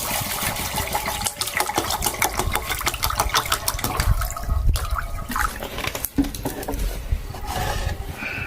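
Bottled purified water being poured into a cooking pot, splashing and gurgling.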